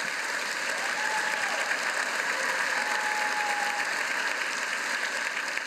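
Large audience applauding, a steady mass of clapping.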